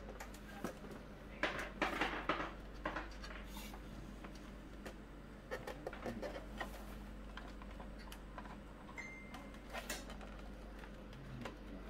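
Scattered clicks and knocks of an Amiga 500 Plus's plastic case and internal parts being handled as the computer is turned over and opened, with a cluster of knocks about two seconds in.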